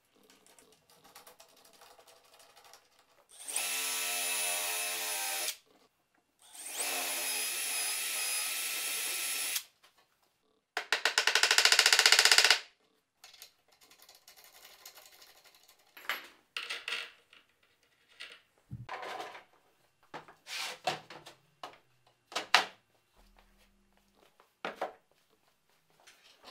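A cordless drill runs twice at a steady pitch, for about two and then three seconds, driving screws into plywood. Then comes a shorter, louder burst with a fast rattle, followed by scattered wooden knocks and clicks as plywood pieces are handled.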